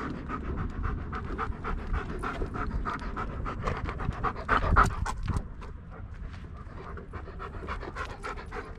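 German Shepherd panting quickly and evenly close to the microphone, loudest a little before halfway through and softer after.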